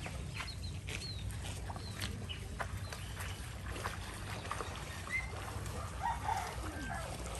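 Birds in a village: short high chirps from small birds and a few clucks from chickens, over a low steady rumble, with scattered short clicks.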